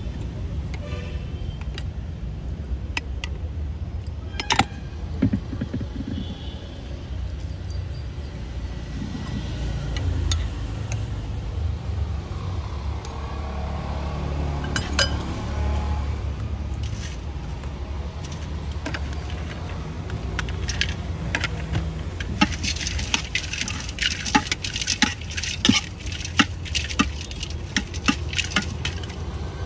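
Metal spoon clinking and scraping against a steel mixing bowl as street-food masala is stirred, with scattered clinks and then a dense run of quick clinks over the last several seconds. A steady low rumble of road traffic lies underneath.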